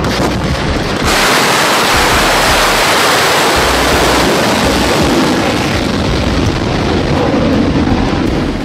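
A Topol-M intercontinental ballistic missile lifting off: the loud rushing noise of its solid-fuel rocket motor. About a second in it jumps up into a harsher hiss and then holds steady.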